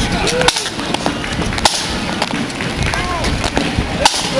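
Street noise with people talking, broken by scattered sharp clicks and knocks.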